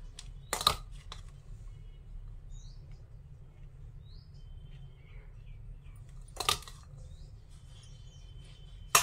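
Three sharp knocks, about a second in, a little past six seconds and at the very end, over faint scattered bird chirps.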